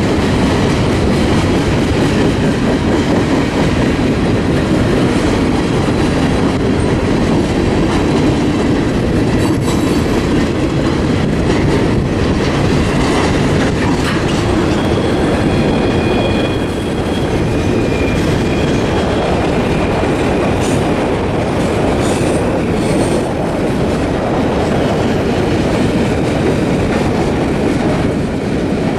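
Freight cars of a long CSX train rolling past: a steady rumble of wheels on rail with some clickety-clack over the joints. A few faint, thin wheel squeals come in around the middle.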